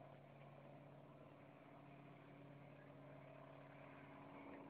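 Faint, steady engine hum of a reconnaissance aircraft flying overhead, one unchanging pitch.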